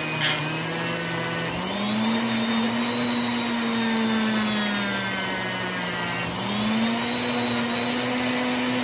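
Dremel rotary tool running steadily with a whine, buffing polishing compound against a rusty steel knife blade to take the rust off. Its pitch steps up twice, about a second and a half in and again near six seconds, and sags slowly in between.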